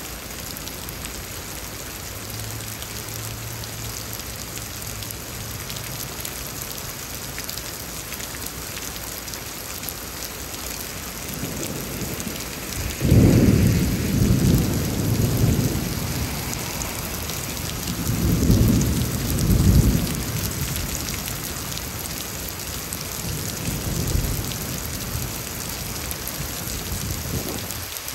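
Heavy, steady rain, with rolling thunder swelling up loudly about halfway through and again a few seconds later, then fading.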